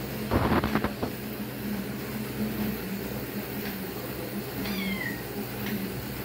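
A kitten mewing once, a short high call that falls in pitch, about five seconds in. About half a second in there is a brief, louder clatter of knocks.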